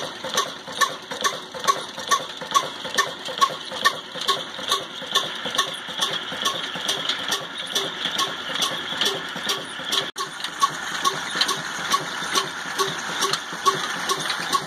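Old single-cylinder Ruston Hornsby-type 'desi' diesel engine running at a slow, even beat of about two strokes a second while driving a chakki flour mill, with a steady hiss underneath. The sound breaks off for an instant about ten seconds in.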